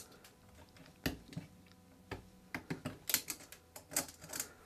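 A knife blade picking and cutting into an old, brittle rubber tire on a wooden wheel: irregular small clicks and crackles. They come more thickly in the second half.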